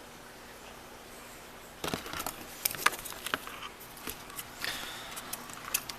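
Small padlock and key being handled: a run of short sharp clicks and light rattles, starting about two seconds in and lasting about four seconds, after a quiet stretch of faint hum.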